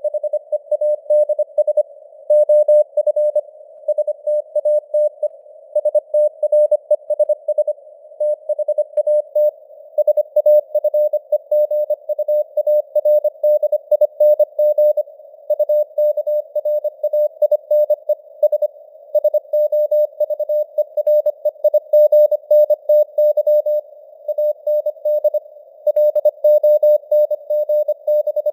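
Morse code (CW) news text sent at 25 words per minute as a single tone keyed rapidly on and off in dots and dashes. A narrow band of simulated radio hiss sits around the tone, and the signal strength fades up and down (QSB).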